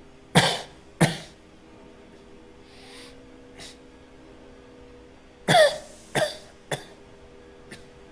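Harsh coughing from a man: two coughs near the start, then a second bout of two or three coughs past the middle, the first with a strained, voiced rasp. A steady low hum sounds underneath.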